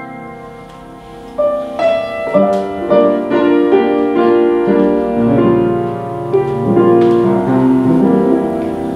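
Instrumental interlude of a Wienerlied between sung verses, the accompaniment playing alone. It starts softly and grows louder about a second and a half in.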